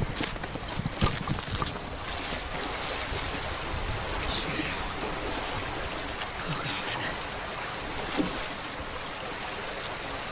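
Steady rush of a fast-flowing creek with wind on the microphone. In the first couple of seconds, several knocks and scuffs come as a man slips and tumbles down the bank to the water's edge.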